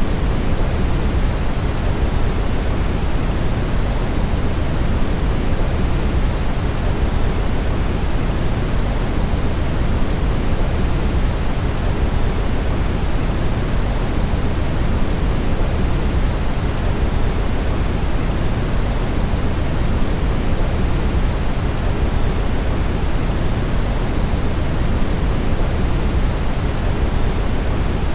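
Steady brown noise: an even, deep rushing hiss, heaviest in the bass and thinning toward the treble, unchanging throughout.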